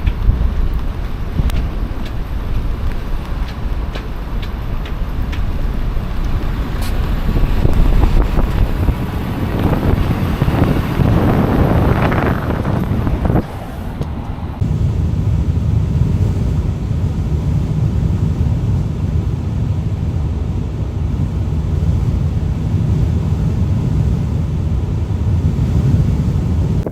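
Blizzard wind buffeting the microphone, a steady low rumble with a louder swell rising and falling about ten to thirteen seconds in.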